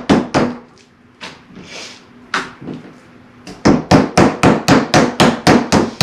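Meat tenderizer striking raw chicken breasts against a wooden cutting board: a few spaced knocks, then from about three and a half seconds in a fast, even run of about five strikes a second.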